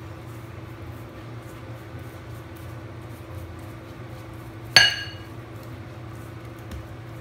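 A glass bowl clinks once, sharply, about five seconds in, with a short bright ring, while a pastry brush is worked with melted butter; a steady low hum underlies it.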